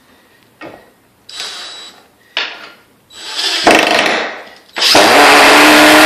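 DeWalt 20 V impact driver running in a few short bursts, then two longer, louder runs about three and five seconds in, as it drives a screw into a stud. The screw won't seat properly because the stud is loose.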